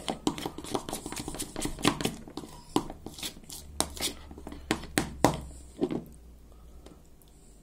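A utensil beating cream cheese and melted chocolate in a bowl, knocking and scraping against the bowl in quick, irregular strokes. It stops about six seconds in.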